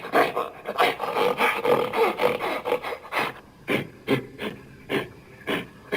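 Gorilla vocal sound effect: a run of short breathy grunts, quick at first, then spacing out to about two a second in the second half.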